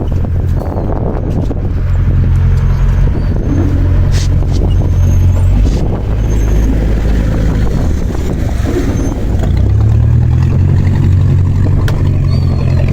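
A boat engine running with a steady low rumble that dips for a moment about eight seconds in, then picks up again.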